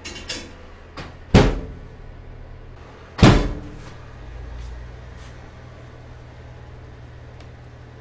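Built-in wall oven's door banging shut with a sharp clunk about a second and a half in, and again a couple of seconds later, with lighter clicks and knocks of the dish and rack around them. A steady low hum runs underneath.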